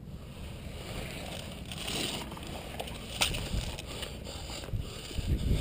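Wind and handling rumble on a body-worn camera microphone, with a few sharp, widely spaced clicks, the clearest about three seconds in.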